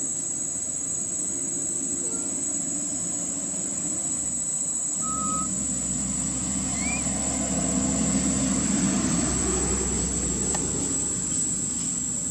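A motor vehicle's engine rumbling past: it swells from about five seconds in, is loudest around nine seconds, then eases off. Under it runs a steady high-pitched insect drone, with a few short faint chirps.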